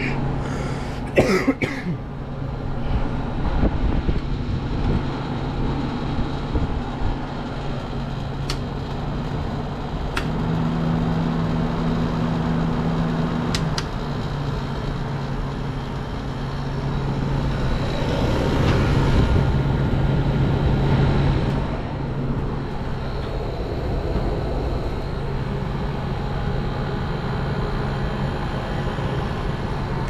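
Vintage Sharp window air conditioner running: a steady low compressor hum under the rush of its fan, with a few sharp clicks in the first couple of seconds.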